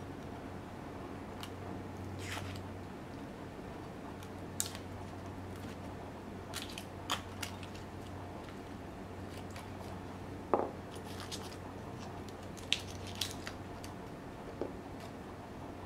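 Kitchen food-preparation sounds: scattered light clicks and taps, with one firmer knock about ten seconds in, over a steady low hum.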